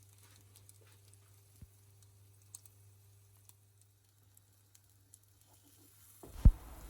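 Near silence with a low hum and a few faint ticks, then a single thump about six seconds in, followed by a low rush of sound.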